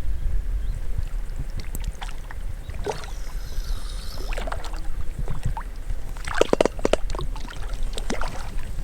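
A steady low rumble with scattered sharp clicks and knocks, the loudest in a cluster about six and a half seconds in.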